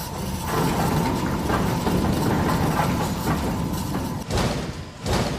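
Computer-controlled hydraulic shaker rig vibrating a truck cab to recreate the vibrations of cruising speed: a dense, steady low mechanical rumble with fast rattling. Two heavier thuds come near the end.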